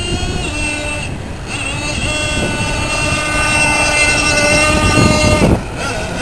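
Gas-powered RC boat's small gasoline engine running at high revs as the boat planes across the water, a steady buzzing note that grows louder, then drops off suddenly about five and a half seconds in.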